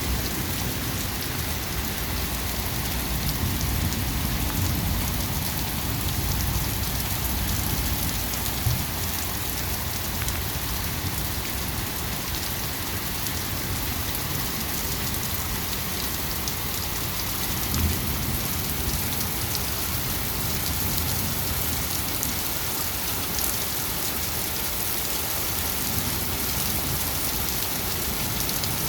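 Rain pouring steadily during a thunderstorm, with a strong low rumble underneath and two brief low thumps, one about a third of the way in and one past the middle.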